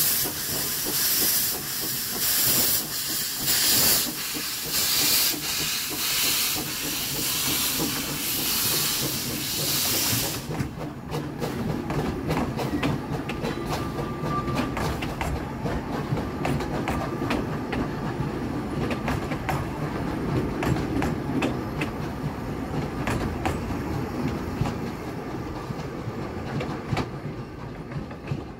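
Narrow-gauge steam locomotive pulling away with its cylinder cocks open: a loud hiss of steam pulsing with each exhaust beat, which cuts off suddenly about ten seconds in. Then the coaches roll past with a low rumble and wheels clicking over the rail joints, fading as the train draws away.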